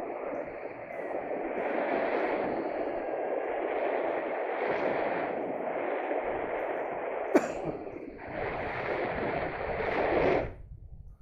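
Wind rushing over the microphone during a paraglider flight: a steady noise with one sharp click about seven seconds in, easing off near the end.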